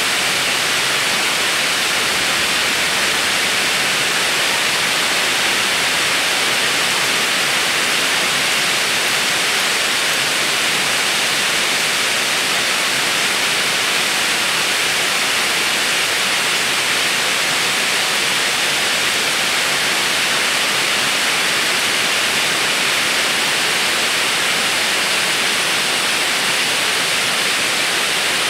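Steady, loud hiss like white noise, unchanging throughout, with no clear sound of the wheel or the hands on the clay standing out from it.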